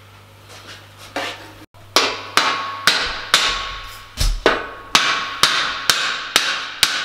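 Hammer blows on a metal exhaust tube, knocking it into place on a fabricated exhaust manifold. A couple of light taps come first, then from about two seconds in a steady run of sharp metallic strikes, about two a second, each ringing briefly.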